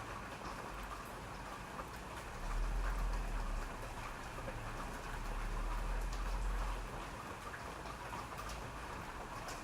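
Steady rain falling on a surface, with individual drops ticking sharply here and there. A low rumble swells up twice, about a third of the way in and again past the middle.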